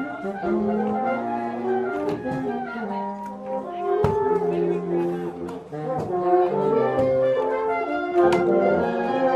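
Brass band music, with horns and trombones playing held chords that change about once a second, and a few sharp clicks scattered through it.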